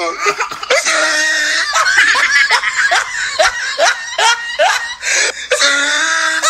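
A woman laughing hard in a rapid run of short bursts, with a long drawn-out cry about a second in and another near the end.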